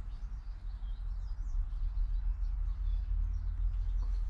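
Faint, scattered chirps of small birds over a steady low rumble.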